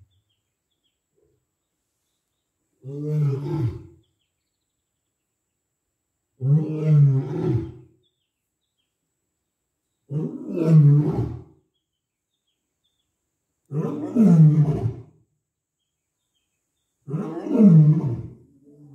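Male lion roaring: five long roars about three and a half seconds apart, each lasting over a second and getting louder through the bout.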